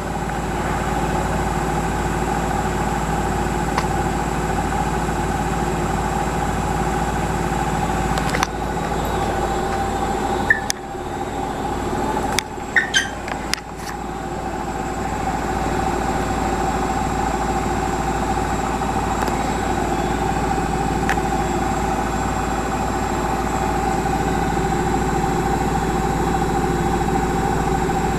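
Siemens Varioperfect washing machine spinning an unbalanced load: a steady whir with a low rhythmic pulsing from the turning drum. About ten seconds in, a few knocks sound and the noise dips, then it builds back up again.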